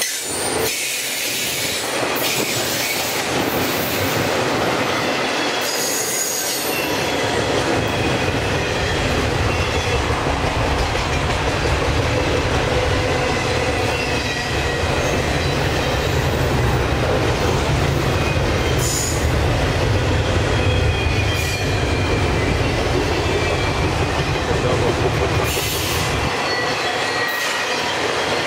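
CSX double-stack intermodal freight train's container cars rolling past: a steady rumble and clatter of wheels on rail, with thin high squeals from the wheels on the curve. A deeper rumble builds about six seconds in and drops away a couple of seconds before the end.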